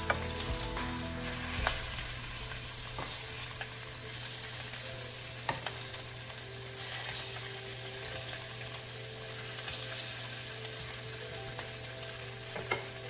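Turkey bacon sizzling in a frying pan with no oil, a steady hiss, with a few light taps and scrapes of a wooden spatula turning the strips.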